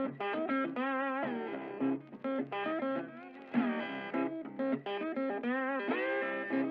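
Background instrumental music: a guitar melody with bent, wavering notes.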